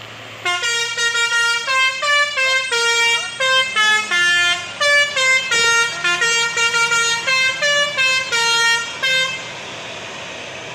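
Basuri 'telolet' musical bus horn playing a fast tune of short notes that step up and down in pitch, starting about half a second in and stopping near the end. A low steady engine hum runs underneath.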